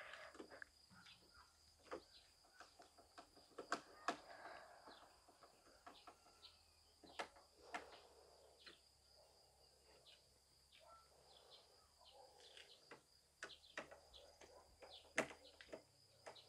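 Near silence with faint scattered clicks and soft rustling, over a steady faint high-pitched whine.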